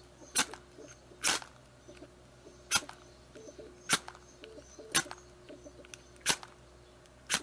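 Oil match (permanent match) struck again and again against the flint striker on its metal case: seven short, sharp scrapes about a second apart, without the wick catching. The owner puts the misfire down to the wick tip having been burned away before it was fully soaked in fuel.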